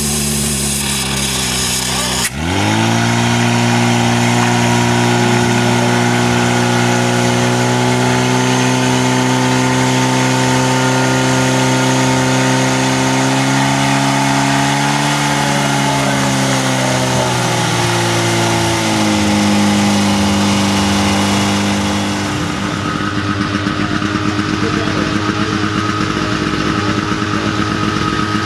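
Portable fire pump's engine running hard at high revs, driving water through the attack hoses to the spraying jets; its pitch eases down about two-thirds of the way through. After a sudden change near the end, an engine runs with a rougher, pulsing beat at lower revs.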